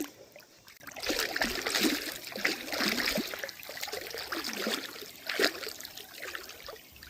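Pond water splashing and trickling as a young Nova Scotia duck tolling retriever puppy paddles through it, starting about a second in, with a sharper splash about five and a half seconds in.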